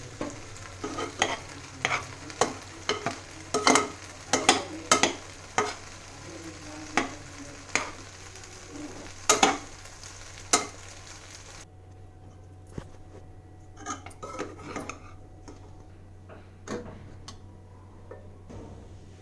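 A spoon stirring food in a cooking pan, knocking and scraping against the pan at an irregular pace, over the hiss of sizzling fat. About twelve seconds in the sizzle cuts off suddenly and only a few scattered knocks follow.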